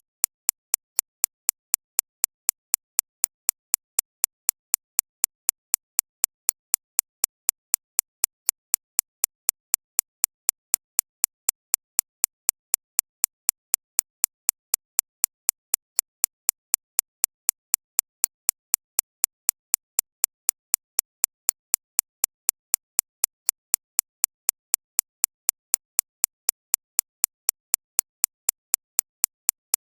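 Synthesized recreation of a shockwave therapy (ESWT) machine's impact pulses: sharp, evenly spaced clicks at about four a second, bright and high-pitched. The pulses are tuned to stress the 6.5 to 13.5 kHz range.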